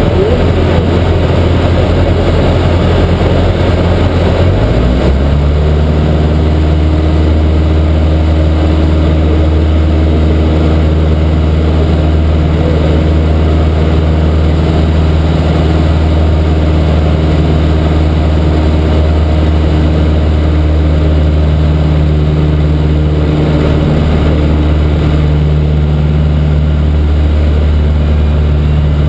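Cessna 152's four-cylinder Lycoming piston engine and propeller heard from inside the cabin, running steadily. Its note shifts about five seconds in as the power is changed, then holds steady.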